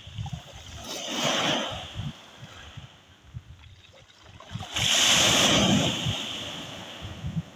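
Sea waves washing onto the shore twice: a first wave about a second in, and a louder one a little before the middle that slowly fades away. Low, uneven rumbling runs underneath.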